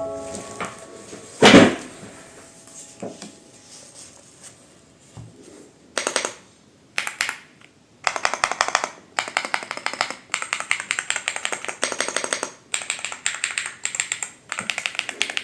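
Typing on the Epomaker X Feker Galaxy80 mechanical keyboard: rapid runs of key clicks and clacks with short pauses between them, starting a little past halfway. Before that there are a few scattered single clicks and one louder knock.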